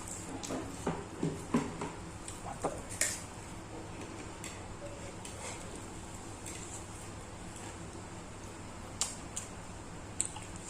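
Eating at the table: a quick run of light clicks and clinks of tableware in the first three seconds, then two more clinks near the end, over a steady low hum.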